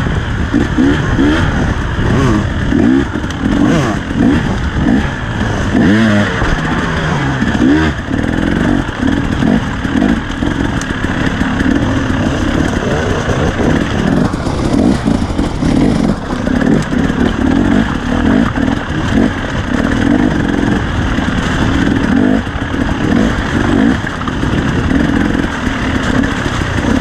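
KTM dirt bike engine being ridden hard, the throttle opening and closing so the pitch rises and falls in quick sweeps over the first several seconds, then running on at a choppier, steadier pace.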